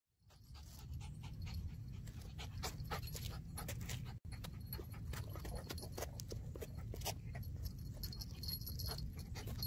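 Miniature poodle panting as it trots, its claws and a person's shoes ticking irregularly on the asphalt, over a steady low rumble.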